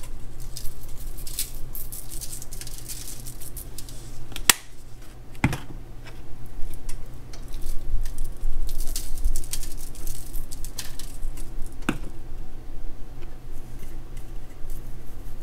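Lemon pepper seasoning shaken from a shaker onto catfish fillets: two spells of quick, fine rattling with a few sharp knocks in between, over a low steady hum.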